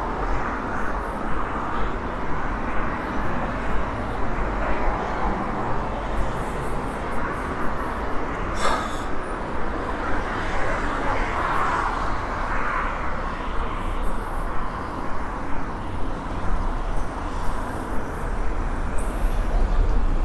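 City street ambience: a steady wash of road traffic with a low rumble and vehicles swelling past. About nine seconds in comes a single sharp clack.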